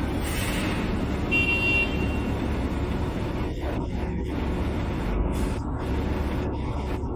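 Heavy truck's diesel engine running low and steady as the tractor-trailer creeps around a sharp hairpin turn. A brief vehicle horn toot sounds about a second and a half in.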